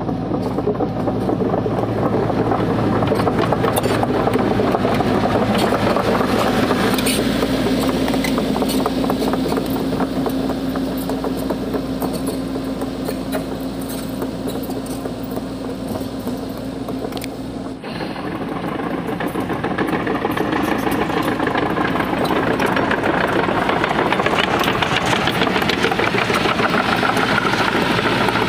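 Diesel engine of an XCMG XE80C crawler excavator running steadily as the machine travels on its steel tracks, with a dense clatter from the track links. The sound changes abruptly about two-thirds of the way through.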